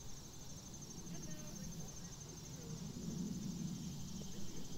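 Insects chirping in a steady, evenly pulsed high trill, faint, over a low rumble that grows a little louder in the second half.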